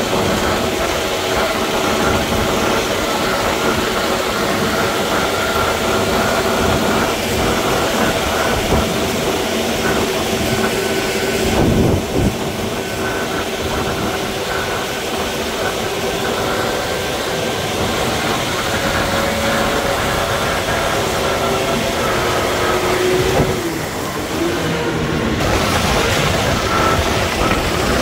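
Diesel engine of heavy road-construction machinery running steadily, with gravel work going on. The sound shifts abruptly twice, about twelve and twenty-three seconds in.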